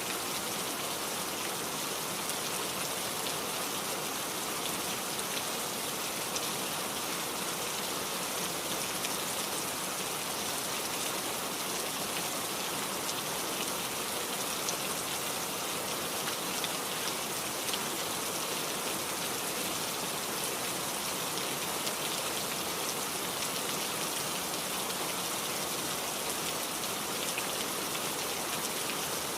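Heavy rain falling steadily, a dense even hiss with fine scattered drop patter.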